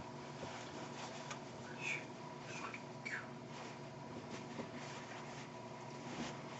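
Faint rustling and soft clicks of a nylon puffer jacket's sleeves and hands moving while signing, with a few short squeaks near the middle, over a steady hum.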